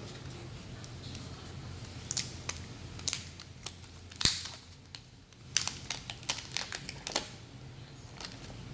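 Crinkling and scattered clicks of things being handled at close range, thickest in the second half, over a steady low hum.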